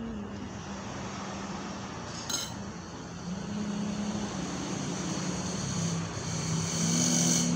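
A nearby vehicle engine runs steadily, its pitch rising briefly a few times, and the sound grows louder near the end. A single clink of cutlery on a plate comes about two seconds in.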